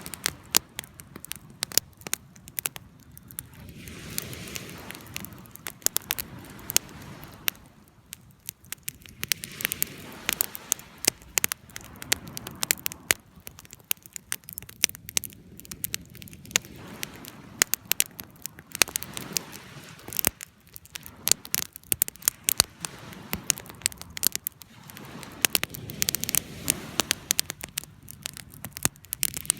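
Wood fire crackling: a steady stream of sharp irregular pops and snaps over a soft low rush of burning.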